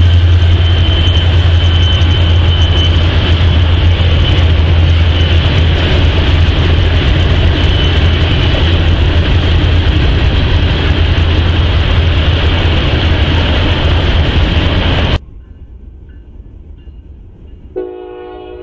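Freight train passing: a loud, steady rumble of wheels on rail with a thin high whine over it, cutting off suddenly about 15 seconds in. Near the end a locomotive horn begins to sound.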